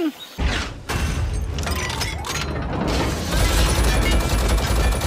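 Action-film battle sound effects: rapid gunfire and explosions over a heavy rumble, starting about half a second in. A steady musical tone comes in about three seconds in.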